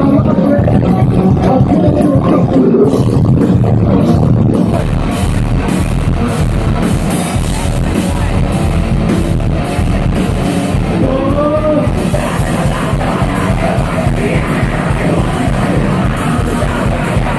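Live rock band playing loud, with drum kit, guitar and a voice singing; cymbals are struck in a steady beat through the middle.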